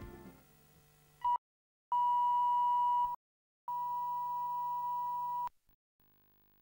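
The end of the closing music fades out, then a steady, high, pure line-up test tone recorded with colour bars on the videotape: a short blip, then two longer stretches of about one and two seconds, each broken off by a moment of dead silence.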